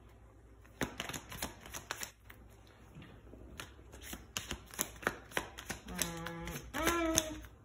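Tarot cards being shuffled and handled: a run of quick, light clicks and flicks. Near the end comes a brief wordless hum from a voice.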